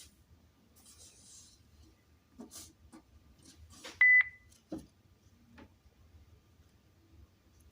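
A single short, high-pitched electronic beep from a TFT EAS 911 EAS encoder-decoder, about halfway through, with soft clicks, rustles and a dull knock around it.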